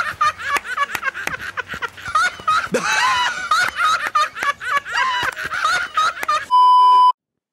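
Two men laughing loudly and high-pitched while clapping their hands over and over. About six and a half seconds in, the laughter cuts to a loud, steady beep tone lasting about half a second, then silence.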